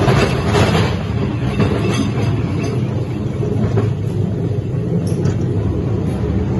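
Ghost train dark-ride car rumbling steadily along its track, with a few clicks and knocks from the wheels.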